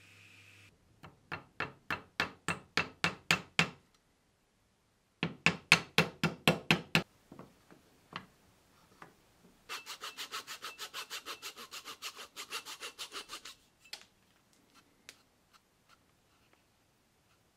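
Hand saw cutting plywood in three runs of rhythmic back-and-forth strokes: the first about four strokes a second, the second louder, the third quicker and brighter. A few scattered light taps follow.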